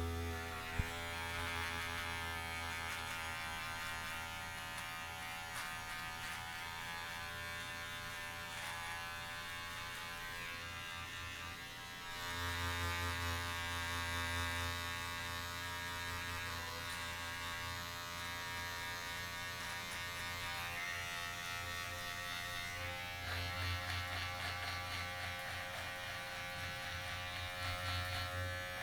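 Electric shaver running against the face during a shave, a steady motor buzz. Its tone and loudness shift about twelve seconds in and again near the end, with a single click just after the start.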